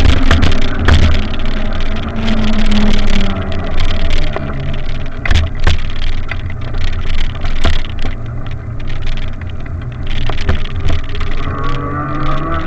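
Wind buffeting the microphone during a ride, a loud rumble with irregular knocks, under a faint pitched hum from a motor that rises in pitch near the end.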